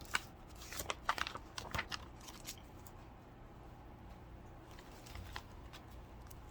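A quick run of rustling and clicking handling sounds for about two and a half seconds, then a few faint ticks over low room hum.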